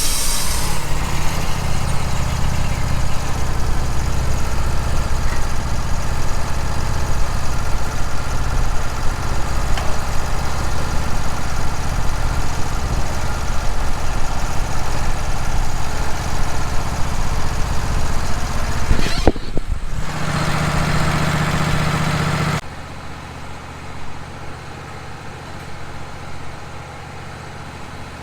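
Wood-Mizer sawmill's engine running steadily. The sound changes abruptly about two-thirds of the way in, then drops to a much quieter engine near the end.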